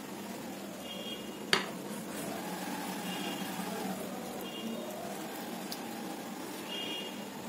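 Fingers breaking up and squishing boiled egg in curry gravy in a bowl, with one sharp click against the dish about one and a half seconds in, over a steady low hum.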